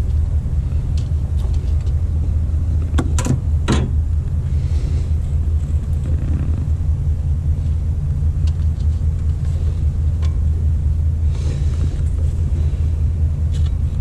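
Steady low background rumble, with a few sharp metallic clicks about three to four seconds in and a couple more later, from hands and tools working at the serpentine belt and pump pulley.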